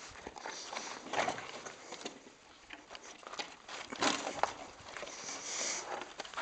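Footsteps and a mountain bike's knobby tyre crunching and scraping over gritty sand and rock, in irregular crunches and knocks as the bike is handled by hand.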